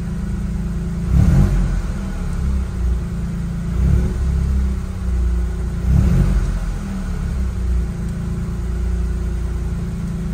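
Toyota GR Yaris's G16E-GTS turbocharged three-cylinder engine, fitted with Kelford cams, idling steadily. It is heard from inside the cabin, and its note swells briefly about three times.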